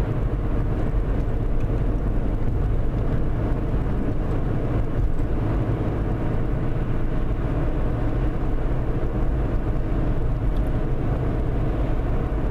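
Steady road and engine drone heard inside a car's cabin while driving along a highway: an even low rumble with no break or change.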